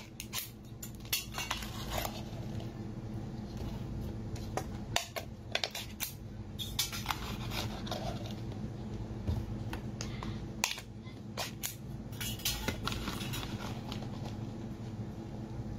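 A foil-sealed plastic tub of sauced crayfish tails being peeled open and emptied onto a plate: many scattered clicks, crinkles and taps of the container and the wet tails tumbling out, over a steady low hum.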